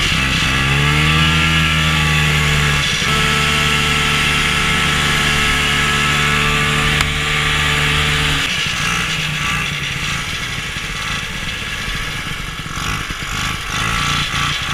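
Old snowmobile engine running at steady throttle, heard on board over wind rush: the engine note climbs about a second in and holds, then about two-thirds through the throttle comes off and the steady note gives way to a lower, rougher running sound.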